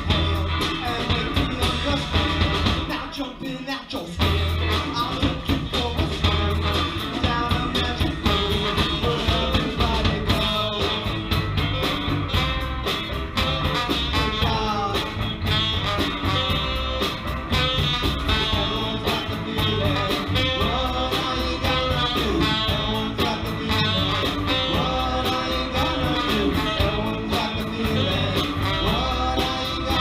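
Live band playing a song: electric guitar, saxophone, trombone and drums, with a singer. The band drops out briefly about three seconds in, then comes back in.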